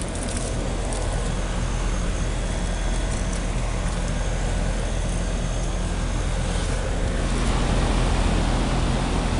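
Outdoor heat pump unit running in heat mode: a steady compressor hum under the rush of the condenser fan, growing a little louder about seven seconds in.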